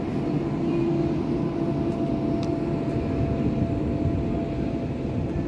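C2C Class 720 electric multiple unit running, a steady low rumble with a faint steady hum over it.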